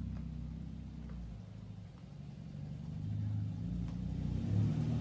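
A Honda Civic sedan's engine running at low speed as the car rolls slowly past. The low rumble eases off about two seconds in, then grows louder over the last couple of seconds.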